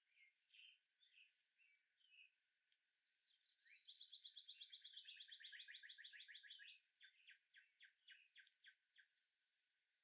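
Faint songbirds calling: a few short chirps, then a fast trill of rapidly repeated notes lasting about three and a half seconds, then a run of sharp notes about four a second.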